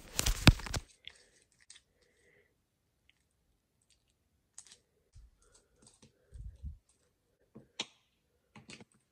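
Hands working a small piece of mouthwash-and-hairspray slime. A loud crackling burst comes in the first second, then scattered soft sticky clicks and a few dull taps.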